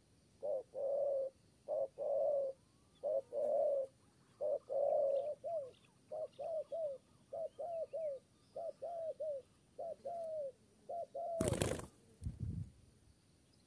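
Spotted dove cooing a long series of low coos, the early notes longer and the later ones coming in quick pairs and triples that drop in pitch at the end. Near the end comes a short, loud burst of noise, then a low thump.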